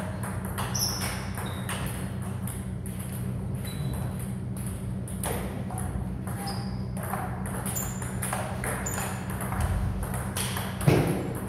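Table tennis balls clicking off tables and bats in a quick, uneven run of knocks over a steady low hum, with one louder knock near the end.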